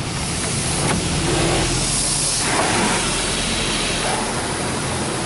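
High-pressure water spray from a Washworld Razor touchless car wash gantry hitting the car, heard from inside the cabin as a loud hiss that swells about a second in and eases near the end, over the steady hum of the car's idling engine.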